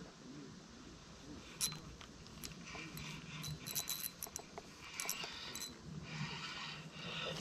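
Small spinning reel, a Bullzen Blackout 800, being cranked: a quick clicking rattle as line is wound in. It starts about a second and a half in and continues with handling noise.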